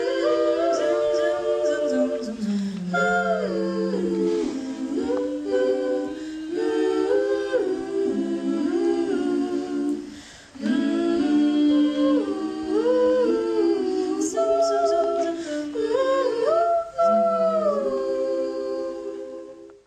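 A group of women's voices singing a cappella in close harmony. There is a brief break about ten seconds in, and the singing cuts off abruptly at the end.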